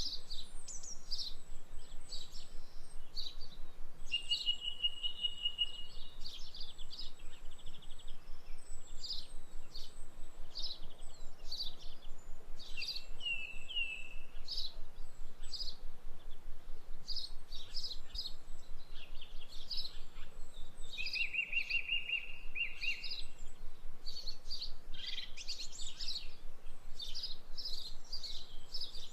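Several songbirds chirping and singing together: a steady stream of short high chirps, broken by a few longer trills.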